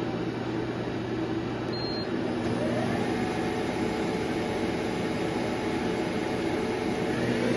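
2006 Okuma ES-L8 CNC turning center running under power, a steady machine hum with a whine that glides up in pitch about three seconds in and again near the end, as the spindle changes speed. It runs super quiet and super smooth.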